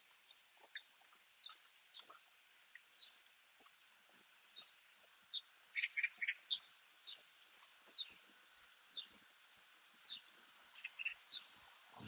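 A small bird chirping outdoors, repeating short high chirps that slide downward, roughly one or two a second, with a quick run of several louder chirps about halfway through.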